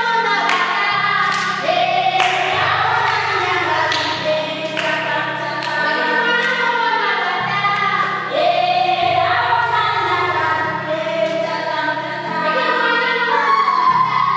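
Music: a choir singing over a bass line that changes note every second or so, with light percussion hits.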